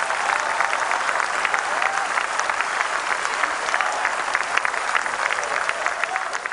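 Audience applauding, with dense, steady clapping and a few faint voices calling out; the applause starts to fade near the end.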